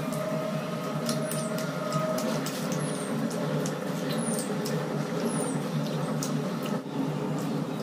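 Quiet eating sounds, with small clicks of fingers picking food off china plates and chewing, over a steady low hum. A faint steady tone fades out about two and a half seconds in, and four short, high, falling chirps come at intervals.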